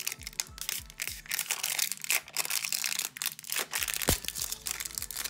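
Wrapping being peeled and torn off a cardboard party-popper toy tube by hand, crinkling and crackling continuously, with one sharper snap about four seconds in.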